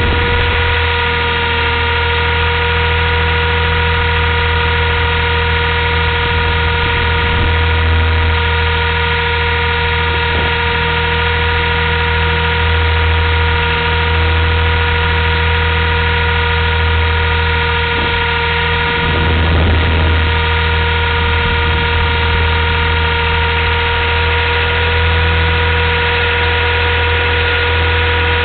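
Blade 230S electric RC helicopter in flight, heard from its onboard camera: a steady motor and rotor hum with several constant high whining tones, and a brief change about two-thirds of the way through.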